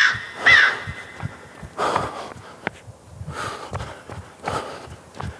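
A bird caws twice at the start. Then a runner's heavy, gasping breathing and the thud of running footsteps on asphalt, about three to four steps a second.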